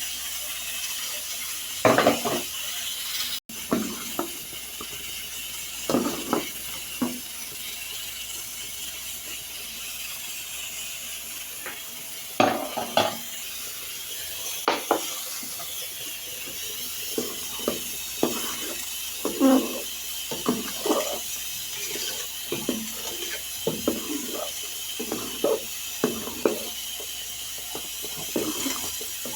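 A spoon scraping and knocking against a cooking pan as a thick banana sweet mixture is stirred, in irregular strokes that come more often in the second half, over a steady background hiss.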